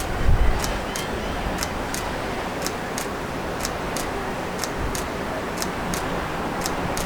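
A vehicle's turn-signal or hazard flasher ticking in a steady tick-tock, a pair of clicks about once a second, over a steady rushing hiss. A brief low rumble comes right at the start.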